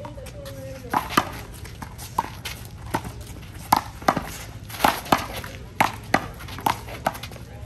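Handball rally: a small rubber ball smacked by hands and off the wall in a fast, uneven string of sharp slaps, often in quick pairs.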